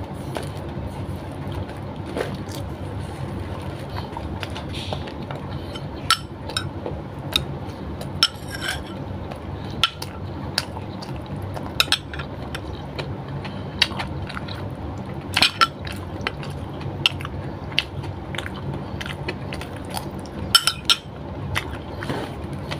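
Close-up eating sounds: wet chewing and mouth noises with scattered, irregular clicks and clinks of a fork and spoon against a glass bowl and plate, over a steady low hum.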